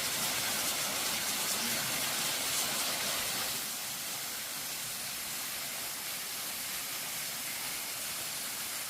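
Waterfall: a steady rush of falling water, a little louder for the first few seconds and then even.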